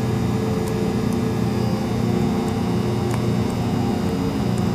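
Steady electrical hum from the large stepper motor on a Bridgeport mill's table drive, held energised by its EasyDriver while being jogged a half thousandth at a time, with a few faint ticks.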